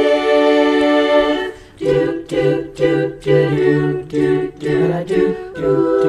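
Women's a cappella chorus singing in four-part harmony: a held chord fades about a second and a half in, then the voices come back in short, repeated backing syllables, about two or three a second, with a low part added underneath.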